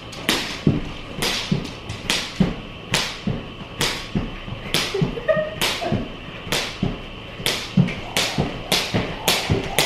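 Weighted jump rope whipping through the air and slapping a hardwood floor about twice a second as someone skips, each turn paired with a light thud of feet landing.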